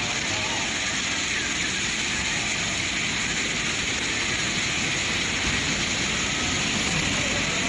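Flash-flooded river rushing past in a steady, loud torrent of muddy water.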